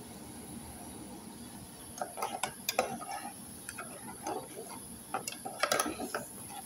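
A spoon stirring a tomato stew in a cooking pot. From about two seconds in, the utensil scrapes and knocks against the pot in an irregular run of clicks.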